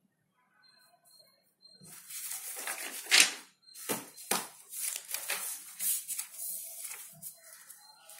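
Paper rustling and being handled: a run of crinkling, scraping noises starting about two seconds in, with a few sharp knocks near the middle.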